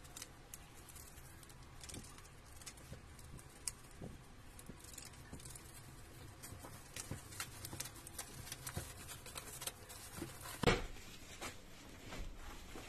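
Parcel packaging being cut and pulled open by hand: faint scratching, rustling and small clicks throughout, with one louder sharp knock near the end.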